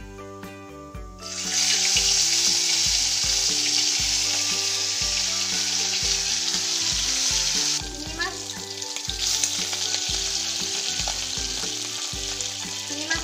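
Fish pieces frying in hot mustard oil in an aluminium kadai: a loud, even sizzle that starts about a second in as the fish goes into the oil, dips a little past the middle and picks up again.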